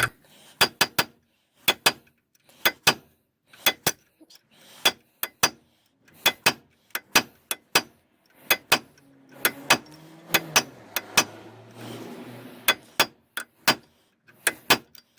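Hammer striking a chisel against rounded-off Torx T50 brake disc bolts, knocking them loose: repeated sharp metallic strikes, often in quick pairs or threes.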